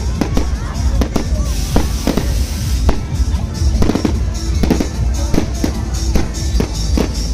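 Fireworks going off: a rapid, irregular string of bangs and crackles, with a hissing rush about one and a half to three seconds in.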